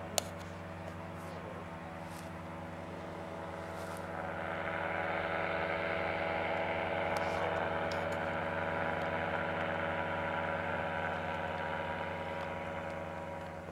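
Paramotor engine and propeller droning steadily overhead, growing louder about four seconds in and easing off near the end. A single sharp click comes right at the start.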